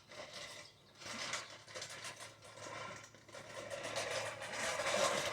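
Baseball card packs and cards being handled: irregular rustling and scraping that builds toward the end.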